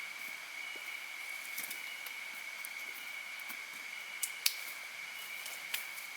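Outdoor ambience: a steady high-pitched drone over an even hiss, with three sharp clicks, two a little past four seconds in and one near the end.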